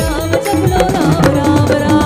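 Indian devotional bhajan music played by the band between sung lines: a steady hand-drum rhythm under a melodic instrument line, with gliding notes near the end.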